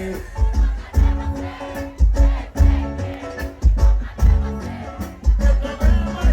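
Live sertanejo band music with a heavy, regular kick-drum and bass beat.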